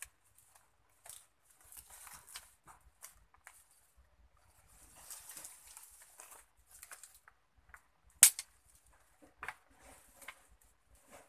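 Dry twigs and leaf litter rustling and snapping as a smoking brush pile is worked by hand and with a machete: scattered sharp clicks, stretches of rustling, and one loud crack about eight seconds in.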